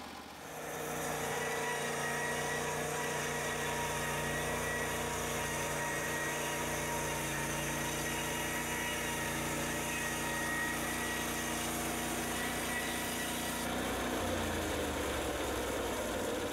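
Small gasoline engine of a portable band sawmill running up to speed about half a second in and holding a steady pitch, then dropping to a lower pitch near the end.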